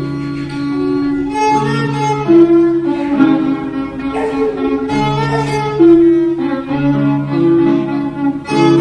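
Instrumental music led by bowed strings, playing a melody of held notes that change about once a second.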